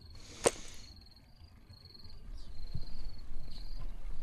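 Crickets chirping in a steady high trill. About half a second in comes one short, sharp sound, and from about two seconds a low rumble rises beneath.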